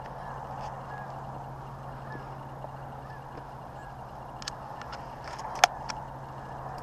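Geese honking in the distance, many calls blending into a steady chorus. A single sharp click comes about five and a half seconds in.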